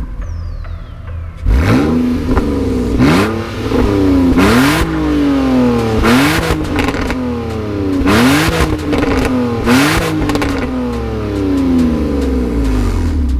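BMW E46 engine revved again and again, each rev climbing quickly and falling back toward idle, with a loud blast from the exhaust at the top of each rev.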